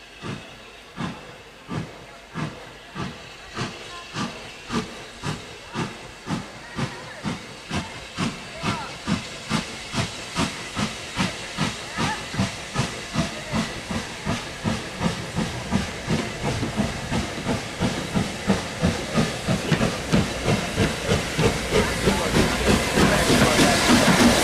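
Metropolitan Railway E class 0-4-4 tank locomotive No. 1 working steam as it approaches: a steady run of exhaust chuffs, about two a second, growing steadily louder until it draws level near the end.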